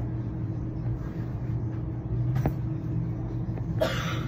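Steady low hum of a running vehicle, with a sharp click about two and a half seconds in and a short hissing rustle near the end.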